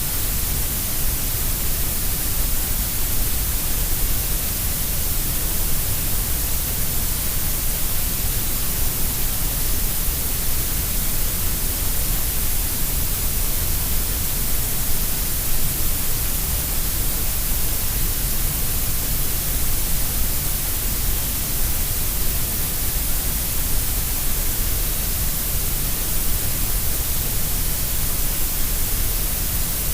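Steady synthetic grey noise: an even, unchanging hiss shaped to sound equally loud at all pitches, heavier in the deep bass and the high treble than in the middle.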